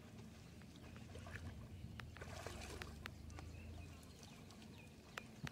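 Shallow pond water sloshing and splashing softly around a person wading and handling a wet fishing net, louder for a second or two in the middle, over a low steady rumble with a few faint ticks.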